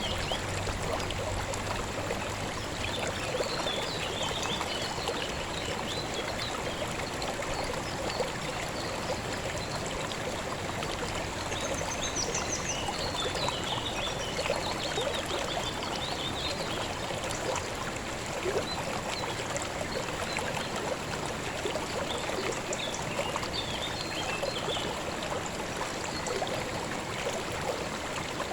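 River water flowing and babbling steadily, with faint high chirps now and then.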